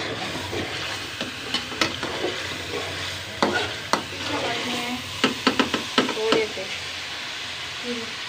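Sliced onions frying in ghee in a metal karahi, sizzling steadily, while a metal spoon stirs them. The spoon scrapes and clinks against the pan in sharp clusters of strikes, about three and a half seconds in and again between five and six seconds.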